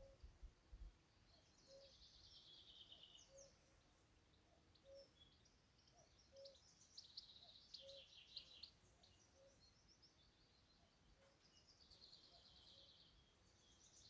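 Faint birdsong from garden songbirds: several short, fast, trilled high-pitched phrases. Under them a soft low note repeats about once a second, stopping a little past two-thirds of the way through.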